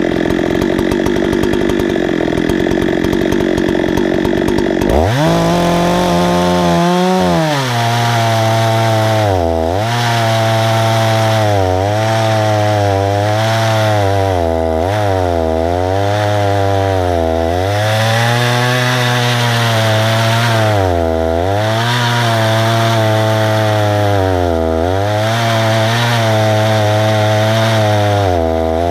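Husqvarna 288 two-stroke chainsaw on an Alaskan chainsaw mill, running low and rough at first, then throttled up sharply about five seconds in. It then runs hard through the cut, its pitch dipping and recovering every second or two as it loads up in the wood.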